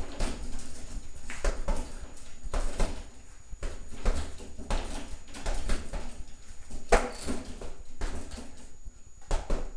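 Boxing gloves punching a heavy bag in quick combinations: an irregular run of thuds, a few a second, the hardest about seven seconds in, with a brief lull near the end.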